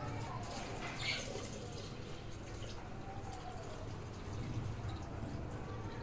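Water pouring and dripping from a plastic jug onto the soil of potted plants, over a steady low hum.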